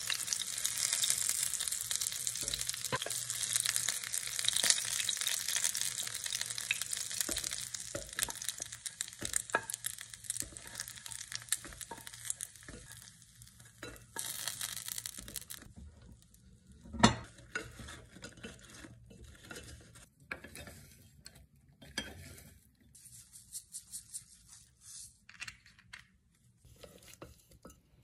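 Chicken frying in shallow oil, sizzling steadily while a wooden spoon turns the pieces and taps the pan. About halfway through the sizzle dies away, leaving scattered knocks and scrapes of the wooden spoon against the cookware, with one sharp knock.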